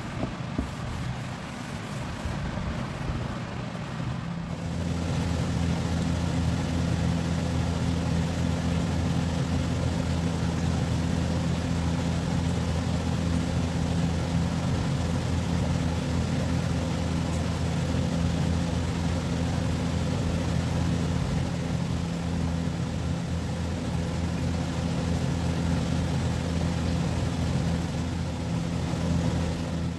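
Steady mechanical hum of a running motor over a constant hiss, growing louder about four and a half seconds in and then holding level.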